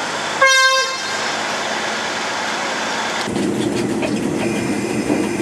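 A train horn gives one short toot about half a second in; from about three seconds in a steady low rumble of the train running sets in as it pulls away.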